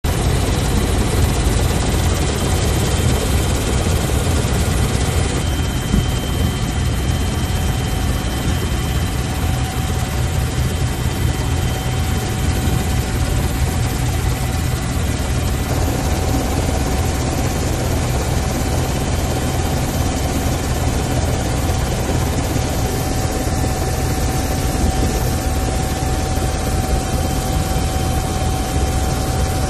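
Helicopter in flight: steady, loud rotor and engine noise with a thin, steady high whine. The mix shifts slightly about five seconds in and again around sixteen seconds.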